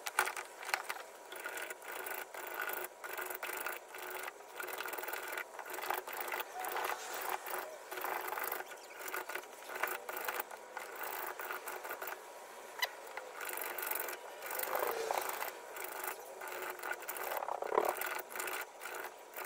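Hand plane scraping along a narrow wooden strip in short, uneven strokes, with scattered light clicks and knocks of the tool against the wood and bench.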